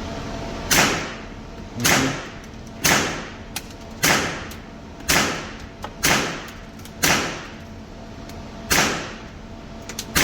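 Gunshots at a shooting range: about eight shots roughly a second apart, with a slightly longer gap before the last. Each is a sharp crack that trails off in a short echo.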